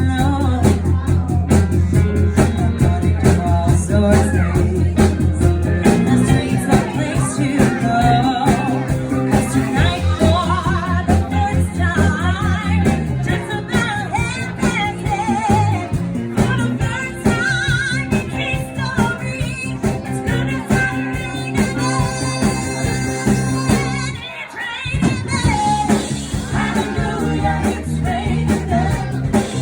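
Live band playing an upbeat disco song, with a woman singing lead over a steady beat and bass line. The band drops out for a moment about twenty-four seconds in, then comes back.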